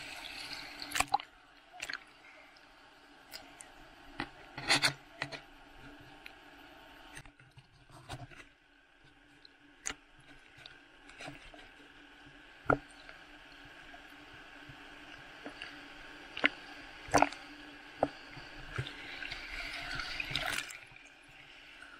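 Sea water sloshing and splashing around a camera in a waterproof case, with scattered sharp taps and knocks on the case and a louder wash of splashing near the end.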